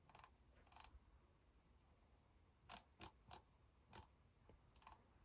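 Faint, irregular clicks of a computer mouse as the map view is moved and zoomed, some coming in quick pairs, about seven in all.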